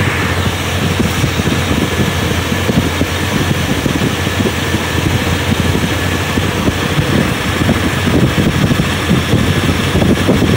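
Carbureted engine idling steadily in park, running with a Colortune see-through spark plug in one cylinder while its fuel/air mixture is checked.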